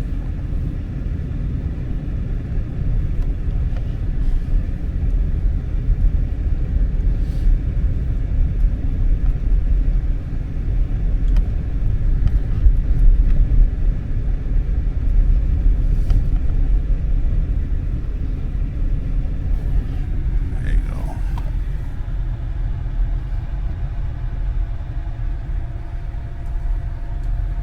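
Vehicle driving on a snowy road: a steady low rumble of engine and road noise.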